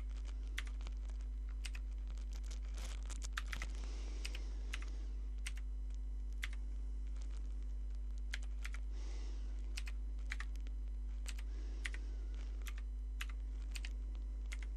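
Typing on a clicky mechanical keyboard: irregular keystrokes with short pauses between runs. A steady low electrical hum sits under it.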